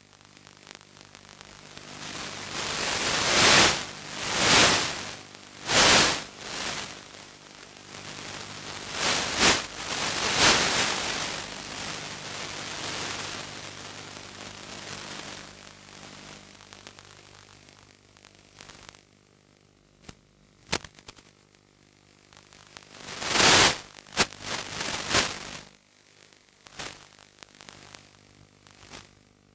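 Radio static hiss from the analog 5.8 GHz FPV video link's audio channel, surging into loud bursts several times and then sinking back to a faint hiss.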